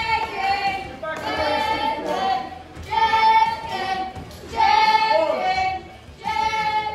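A crowd of children chanting in unison with high-pitched voices, the same short phrase repeated about every second and a half.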